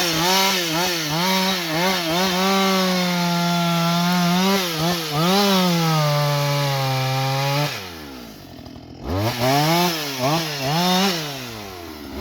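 Husqvarna 562XP two-stroke chainsaw revving in quick throttle blips and held at full throttle while limbing. About eight seconds in the engine falls away to idle, then revs up in short bursts again.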